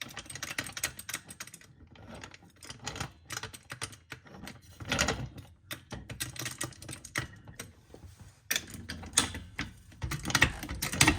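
A car jack being set under the lower ball joint and jacked up: a rapid, irregular run of small metallic clicks and clanks, louder about five seconds in and again near the end.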